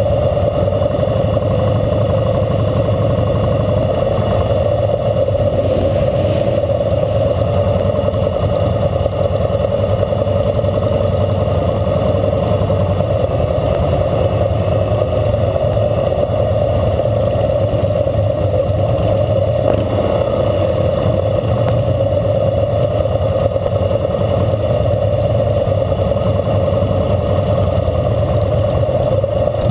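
A 2012 Harley-Davidson Fat Boy Lo's V-twin engine running steadily while the motorcycle rides at parade pace, heard from a camera mounted on the bike, with other motorcycles riding close by.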